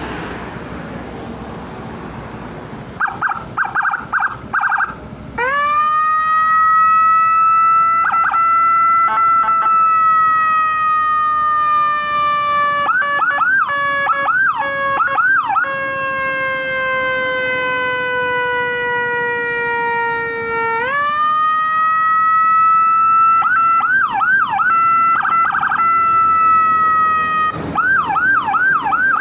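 Motorcycle emergency siren with Whelen-style tones cycling through its patterns. After a few seconds of background noise come rapid short chirps. Then a long wail rises quickly and slowly sags in pitch, jumps back up about two-thirds of the way through and sags again, with bursts of fast warbling yelp over it.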